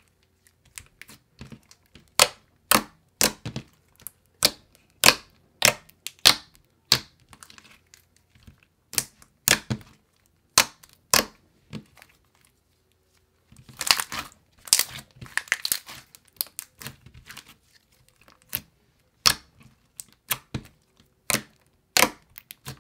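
Thick white slime with small blue beads being pressed, poked and stretched by hand, giving sharp, irregular pops and clicks about once or twice a second. About fourteen seconds in, a denser run of crackling lasts a couple of seconds.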